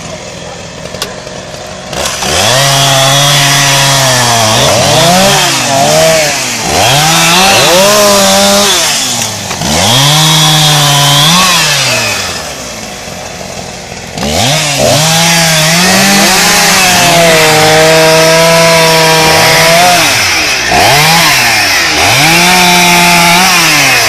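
Two petrol chainsaws cutting through a thick felled tree trunk, the engines revving up and down as they bog under load in the wood and pick up again. The saws run lower for the first couple of seconds and ease off briefly about halfway through before cutting on.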